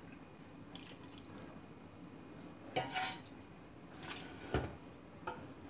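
Metal ladle clinking against the rims of metal cooking pots a few times as sauce is scooped and poured over meatballs, with a sharp knock about four and a half seconds in.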